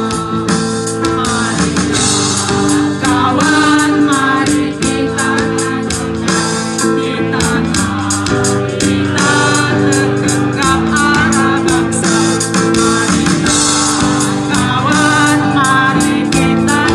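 A slow song, sung with guitar accompaniment, with held notes.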